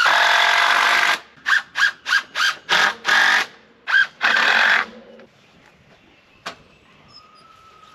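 Power drill driving a screw into a wooden frame board: one long run of the motor, then a string of short trigger bursts as the screw is seated, stopping about five seconds in. A single sharp tick follows a little later.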